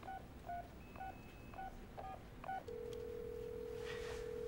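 A touch-tone telephone being dialed: about six quick keypad beeps, each a short two-note tone. A single steady ringing tone about two seconds long follows as the call rings through.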